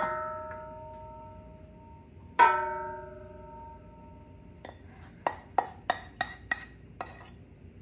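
Enamelled steel (graniteware) pot knocking twice against the rim of a graniteware roasting pan, each knock ringing like a bell and fading over about two seconds, the second louder. Then a quick run of light taps, about three a second, as the pot is tapped over the pan to drain the last of the sauce.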